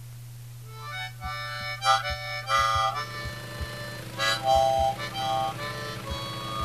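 Instrumental music intro: sustained reedy chords starting about a second in, over a steady low hum and a regular low beat.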